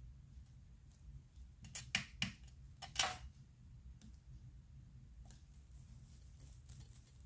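Light handling sounds of paper and a rubber stamp block on a craft mat: a few short taps and slides, the loudest about three seconds in, over a low steady hum.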